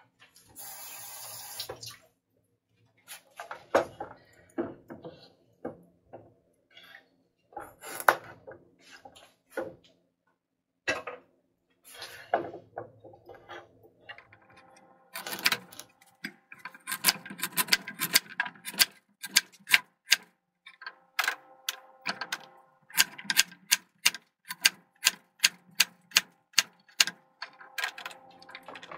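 Chef's knife chopping carrots on a wooden cutting board: scattered knocks at first, then a steady run of sharp knocks about two a second through the second half. A brief rustle comes near the start.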